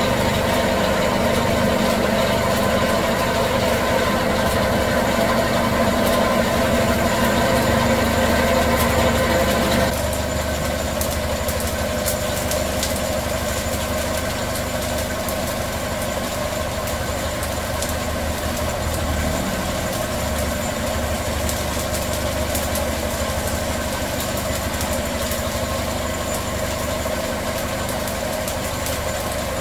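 Electric motor driving a puffed-rice extruder through a belt, running steadily with an even hum. About ten seconds in the sound drops and turns duller.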